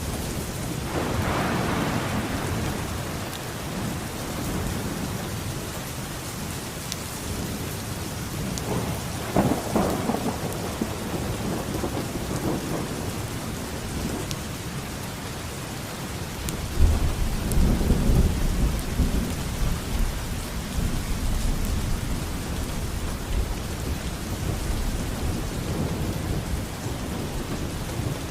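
Steady rain falling, with rolling thunder: a rumble about a second in, another with a crackle around ten seconds, and a deep, heavy rumble from about seventeen seconds that rolls on for several seconds.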